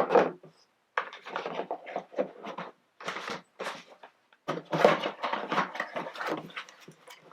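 Things being handled at close range: an irregular run of short rustles, rubs and light knocks, thickest in the second half.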